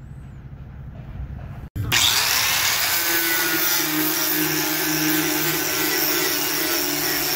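Angle grinder starting about two seconds in, spinning up, then running steadily with its disc against steel channel while deburring and cleaning the metal up for paint.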